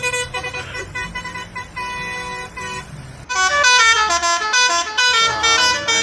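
A lorry's telolet (basuri) air horn comes in about three seconds in, loud, playing a quick tune of stepped notes that jump from pitch to pitch.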